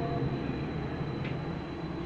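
Athens metro train running slowly along a station platform, heard from inside the carriage: a steady low rumble and hum with a thin, steady high-pitched whine.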